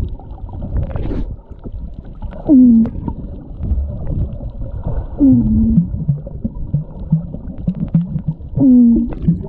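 Heard underwater: three long falling moans, each about half a second, about 2.5, 5 and 9 seconds in. Between the last two comes a string of short low grunts, over a steady low water rumble.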